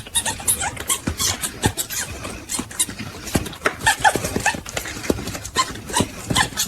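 A quick, irregular clatter of sharp taps and knocks, several a second.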